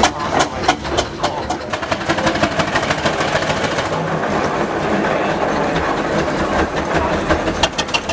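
Steam traction engine running past with a busy clatter of knocks and mechanical noise, the knocks sharpest in the first couple of seconds.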